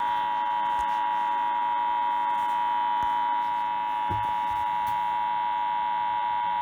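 Emergency Alert System attention signal: a loud, steady two-tone alarm that starts abruptly out of silence and holds without change.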